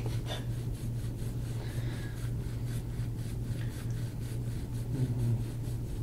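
Gua sha scraping tool stroking over oiled skin in short repeated scrapes, about three to four a second, over a steady low hum.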